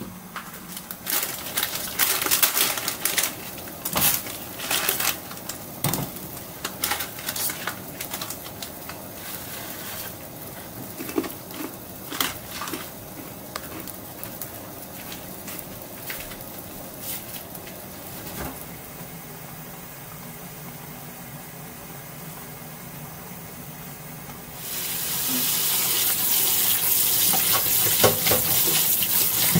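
Kitchen handling noises: irregular clicks and knocks over a low steady hiss. About 25 seconds in, a kitchen tap starts running hard onto cooked instant noodles in a metal strainer as they are rinsed and rubbed by hand.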